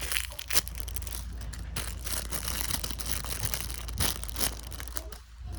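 Crinkling and rustling of homemade squishies being handled and put away, with a few sharp clicks and crackles along the way.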